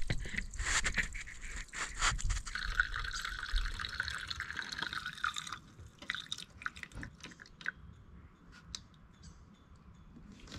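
Gasoline draining from a disconnected lawnmower fuel line into a plastic gas can. A few handling knocks come first, then a steady trickling stream for about three seconds that stops suddenly, followed by scattered faint drips.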